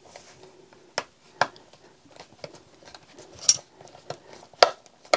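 Engineer PZ-56 screw extraction pliers biting on and twisting a Phillips machine screw out of wood: a handful of sharp metal clicks and creaks at irregular intervals as the jaws grip and the screw turns.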